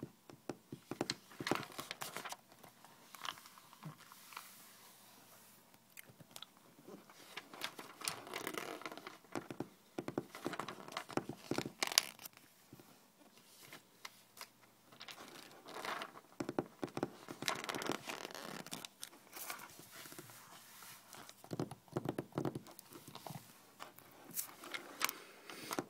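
Fingertips tapping and scratching on a stack of magazine pages and bending and rustling their edges: small crinkly taps and paper rustles in irregular busy spells with sparser stretches between.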